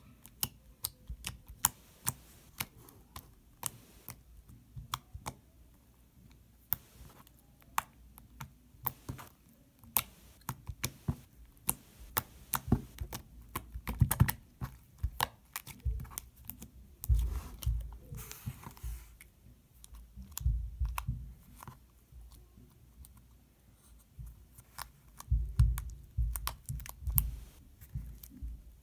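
Fingers poking and squishing fluffy slime, giving many irregular sharp clicks and pops, with soft low thumps and a brief squelching hiss about two-thirds of the way in.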